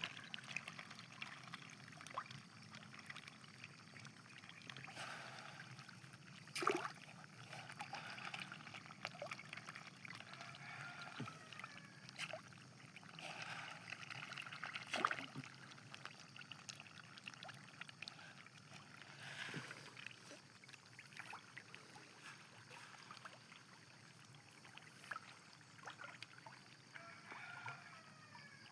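Faint trickling water, with scattered small clicks and ticks over it.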